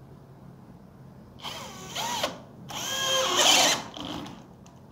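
Bosch GSB 18V-50 brushless cordless drill, set on high speed, driving a large wood auger bit into a post in two bursts of about a second each. The motor's pitch sags and wavers as the bit binds in the wood, a sign of too little torque at the high-speed setting.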